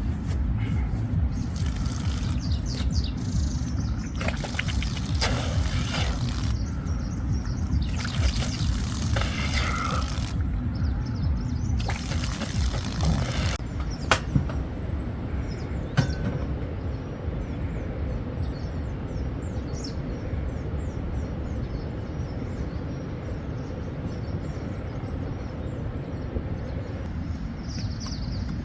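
Storm noise of wind and rain: a steady low rumble, with three louder hissing surges in the first half and two sharp clicks in the middle.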